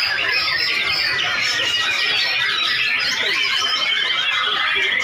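Many white-rumped shamas singing at once in a contest line-up: a continuous, dense tangle of overlapping high whistled phrases.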